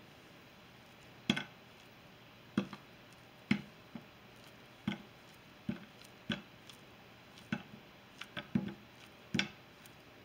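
Knife cutting through a banana held over a glass dish, with slices dropping onto the cookies: a series of short, light clicks and taps at an irregular pace of roughly one a second.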